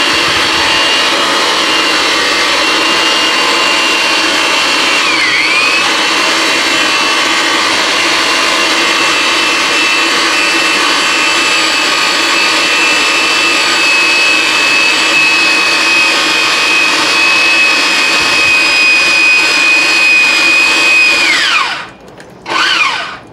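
A Ridgid 300 power pipe threader's motor runs steadily while the die head cuts threads on a spinning pipe. Its whine dips briefly about five seconds in. Near the end the motor is switched off and winds down, then is bumped on again for a moment.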